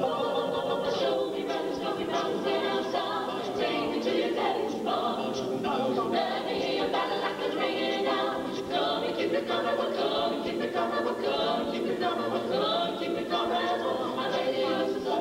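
Mixed-voice a cappella vocal jazz group singing in close harmony with no instruments, starting abruptly.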